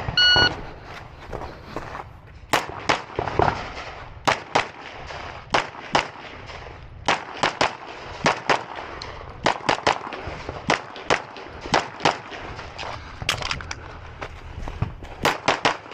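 Shot timer's start beep, then a long string of pistol shots from a red-dot carry optics handgun, fired in quick pairs and singles with short pauses between target transitions.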